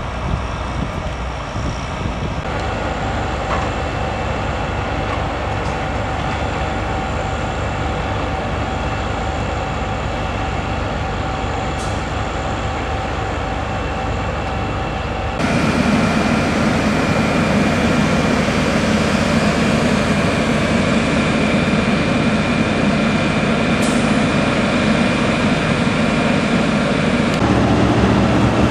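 Truck-mounted well-drilling rigs and heavy diesel site machinery running: a loud, continuous mechanical drone with a few steady whining tones. It steps up abruptly about 15 seconds in, becoming louder and heavier in the low end.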